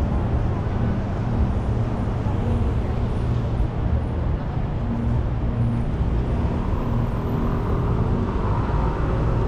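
Urban street ambience: a steady low rumble of road traffic with no distinct events.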